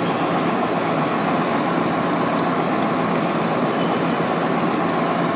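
Parked fire trucks' diesel engines running steadily: a loud, constant drone with a low hum that does not change.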